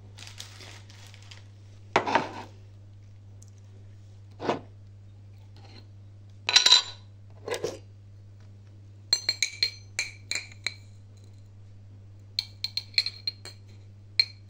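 A metal spoon clinking against a small glass jar as it scoops out granules, each clink with a short ringing note, in quick runs during the second half. Before that, a few separate knocks as the jar is opened and handled.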